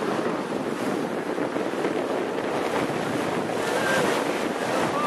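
Water rushing steadily past a sailing yacht's hull as it sails under way, with wind buffeting the microphone.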